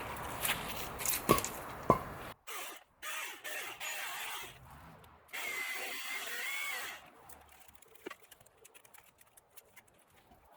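Milwaukee cordless battery chainsaw running and cutting wood in bursts, with two sharp knocks in the first two seconds. It stops about seven seconds in, leaving only scattered light clicks.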